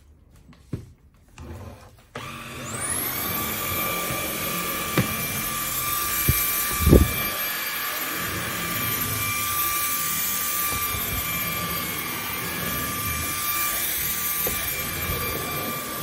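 Greenworks 24V cordless stick vacuum switched on about two seconds in, its motor spinning up to a high whine and then running steadily. A few dull knocks come through, the loudest about seven seconds in.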